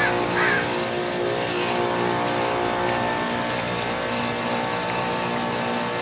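Carrier WeatherMaker 50TCQD 12.5-ton packaged heat pump running in its defrost cycle: its compressors give a steady hum made of several steady tones over a rushing noise.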